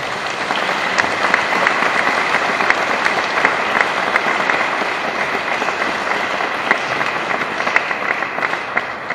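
Congregation applauding in a large vaulted church: many people clapping at once, held steady.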